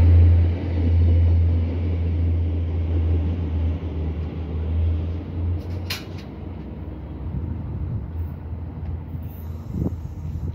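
Stadler GTW-D diesel multiple unit moving off, its diesel engine's low drone fading over several seconds as the train draws away. A short high-pitched squeak comes about six seconds in.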